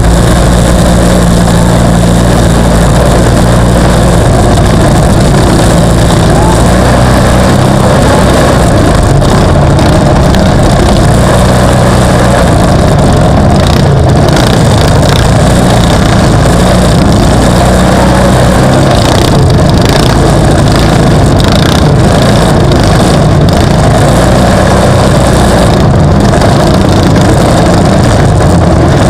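Off-road racing vehicle engines running, loud and steady throughout.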